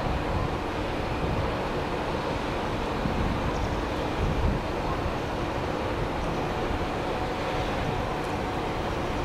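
Kantō Railway KiHa 5000-series diesel railcar running away along the track, a steady rumble of engine and wheels with wind buffeting the microphone.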